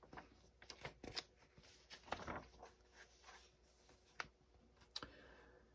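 Soft rustling and scattered light clicks of a glossy magazine page being turned and smoothed flat, with a couple of sharper ticks near the end.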